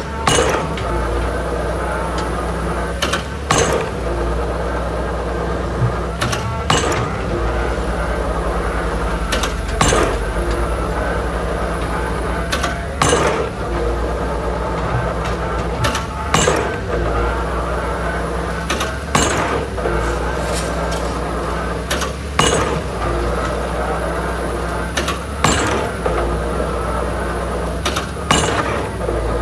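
Excavator-mounted drop hammer driving a concrete pile, striking the pile top ten times at an even pace of about one blow every three seconds, each blow a short double knock. Under the blows the rig's engine runs steadily.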